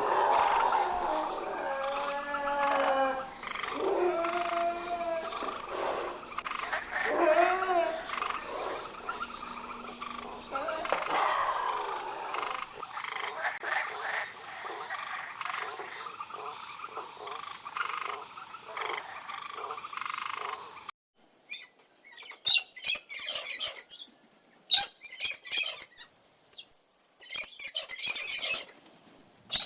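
Frogs croaking in a chorus over a steady high trill that pulses about once a second. About two-thirds of the way in it cuts off abruptly, and short, sharp, high chirps and squeaks follow, with quiet gaps between them.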